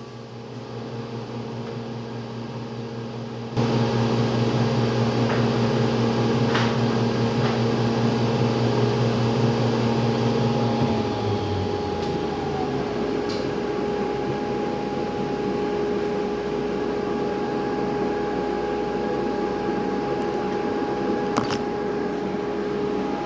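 Electric woodshop machinery running with a steady motor hum. It gets suddenly louder about three and a half seconds in, and its pitch shifts around eleven seconds in, with a few faint clicks.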